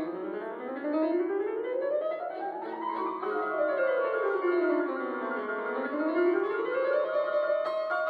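Instrumental background music on piano: quick runs of notes sweep upward, then down, then up again, levelling off on a held high note about a second before the end.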